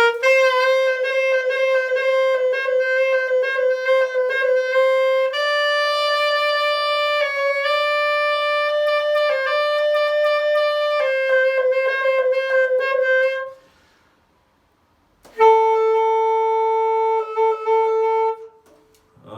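Saxophone playing long held notes, with short dips in pitch of about a quarter tone that return to the main note as extra keys are pressed: the ghost-note effect. The playing stops for a moment about two-thirds through, then a second held note sounds.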